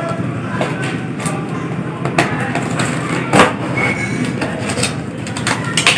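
Blade cutting open a cardboard speaker box, with scrapes and several short clicks and knocks, the loudest a little past the middle, over a steady low background noise.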